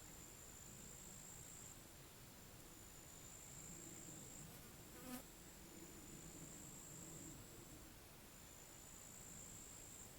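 Faint high-pitched insect trill, running in stretches of a second or two with short breaks, over faint low background noise. A single brief click comes about five seconds in.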